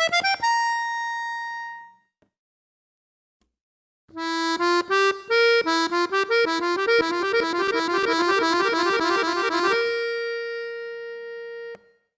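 Accordion playing a short rising flourish that ends on a held note, then after a pause a fast run of notes that settles on a long held low note.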